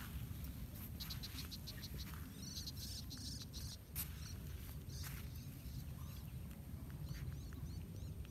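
Outdoor birds and insects chirping: short high chirps in quick rhythmic runs, and a cluster of falling chirps near the middle, over a steady low rumble. A single sharp click about four seconds in.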